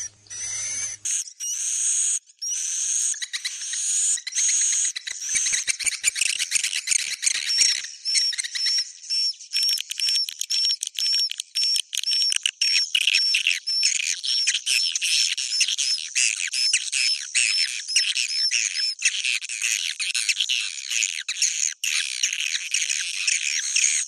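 Swiftlet roosting-lure sound ('suara inap'): a dense, continuous chorus of edible-nest swiftlet chirps and twitters, mixed with rapid clicking, played to draw swiftlets in to roost in a swiftlet house. A short break comes about a second in, and for a few seconds in the middle a short high note repeats about twice a second.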